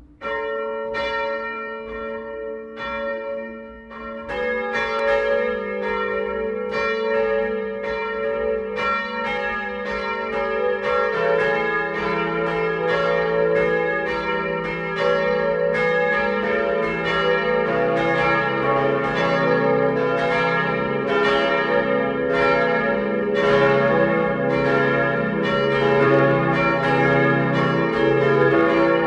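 Simulated church bell peal, made up of synthesized bell tones, of a four-bell peal tuned A-flat, B-flat, D-flat and F. It starts with a single bell striking steadily, and deeper bells join one after another until all four ring together.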